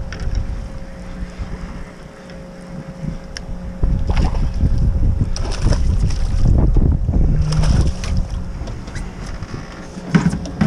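Wind buffeting the microphone on an open boat, with water sloshing against the hull. About five and a half seconds in, a splash as a small fish is thrown back into the sea.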